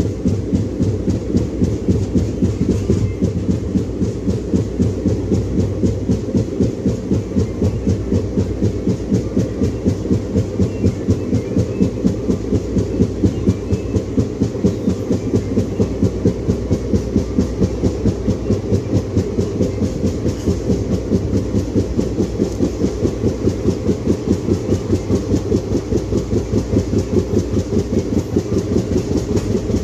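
Flat spot on an ICF passenger coach wheel striking the rail at speed, a rapid, even thumping of several beats a second, over the steady low running of the WDP4D diesel locomotive.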